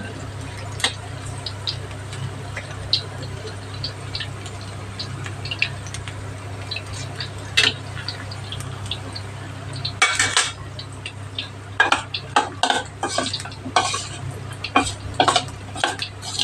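Battered cauliflower florets deep-frying in oil in a stainless steel wok, with a steady sizzle full of small crackles. A metal slotted spatula scrapes against the wok about ten seconds in, then clinks and scrapes repeatedly near the end.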